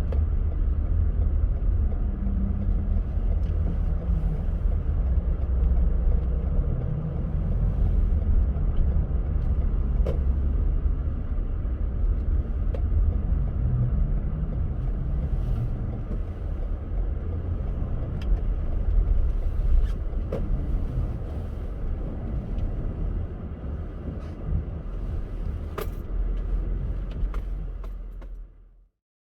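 Car driving on a snowy road: a steady low rumble of tyre and engine noise with a few faint clicks, fading out and cutting off shortly before the end.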